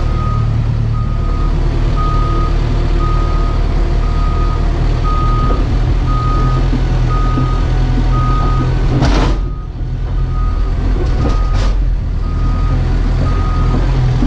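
Backup alarm of a Caterpillar D5K bulldozer beeping steadily, a little under two beeps a second, over the dozer's diesel engine running. A short burst of noise cuts in about nine seconds in.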